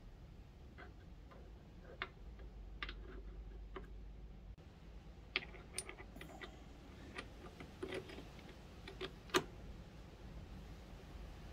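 Steel kickstart gears of a Demon X 170 pit bike engine clicking and clinking as they are slid by hand onto their shafts in the open engine casing: scattered light metallic clicks, the sharpest about nine seconds in.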